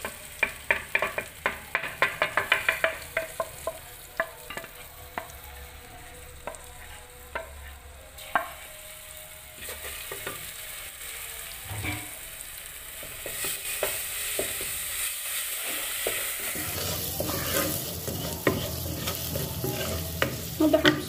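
Wooden spoon knocking and scraping ground spices off a plate into a metal pot in quick taps for the first few seconds, then stirring them in hot oil. The oil sizzles under the spoon, and the sizzle grows louder in the second half.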